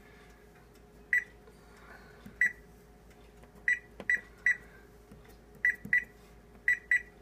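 Microwave oven keypad beeping as its buttons are pressed to set the timer: about nine short, high beeps at uneven spacing, several in quick pairs.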